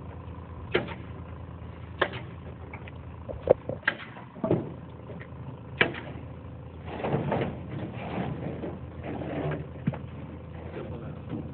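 Wooden sand-fence slats being handled and set onto the assembly frame: sharp, irregular knocks every second or two, with scraping and shuffling in between.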